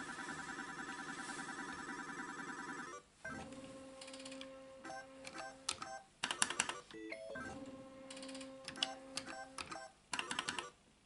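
Pachislot slot machine sounds. For about three seconds it plays a fast warbling electronic jingle. Then come two games: each time the reels start with a steady electronic tone, the stop buttons click, and a quick rattle of beeps and clicks follows, with a short gap before the next spin near the end.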